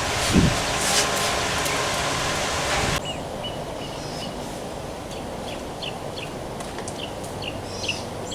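Steady outdoor background noise that cuts off abruptly about three seconds in. Quieter ambience follows, with a run of short repeated bird chirps.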